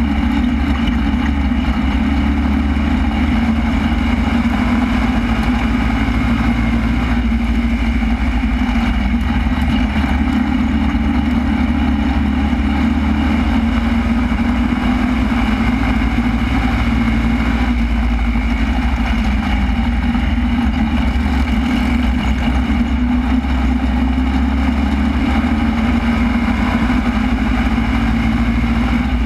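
Super Stock race car's engine running steadily at low revs, heard from inside the cockpit, with no revving or changes in pitch.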